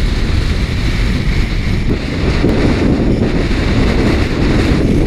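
Wind rushing over the microphone of a camera moving fast down a wet road on a downhill longboard, a steady loud rumble. It is the sound of the rider's speed.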